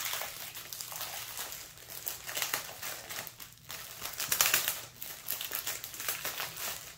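Small plastic packets of diamond-painting drills crinkling and rustling as a rolled-up bundle of them is unrolled and pressed flat by hand, in irregular rustles with a louder stretch about four and a half seconds in.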